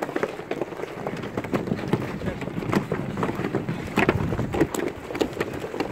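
Wind buffeting the microphone over a busy run of irregular close knocks, clicks and scrapes, with two sharper knocks about four seconds in.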